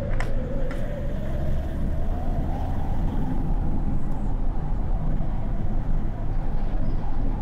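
Car driving along a city street: steady engine and road rumble, the engine note rising as the car picks up speed over the first couple of seconds and then holding. A couple of light clicks sound just after the start.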